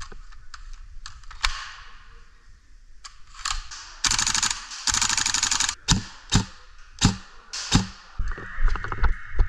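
Airsoft guns firing: scattered single clicks, then two long bursts of rapid-fire clicking about four seconds in, followed by several single sharp shots.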